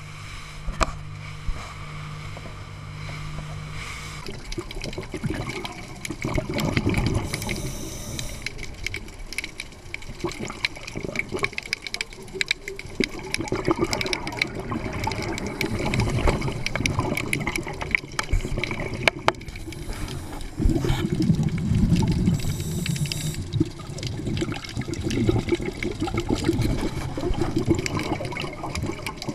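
For about four seconds, a boat engine gives a steady low hum. Then, underwater, a scuba diver's regulator breathing and exhaust bubbles rush and gurgle in bursts every few seconds.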